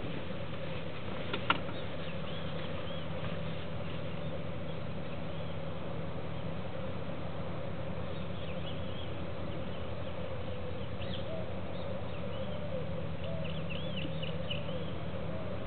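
Outdoor ambience: a steady low drone, with faint high chirps of small birds now and then, more of them in the second half. A single sharp click comes about a second and a half in.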